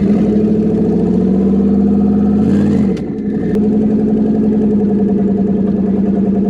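Twin-turbo Ford Coyote 5.0 V8 in a Mustang running steadily at low speed, its note easing briefly up and then down with a short dip in loudness about two and a half seconds in before settling back to the same steady drone.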